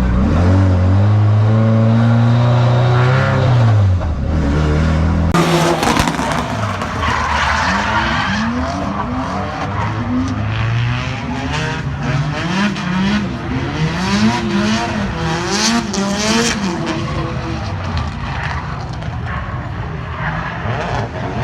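Drift car engine at high revs through a run, held steady for the first few seconds, dropping, then rising and falling quickly again and again as the throttle is worked, with tyres skidding on a wet track.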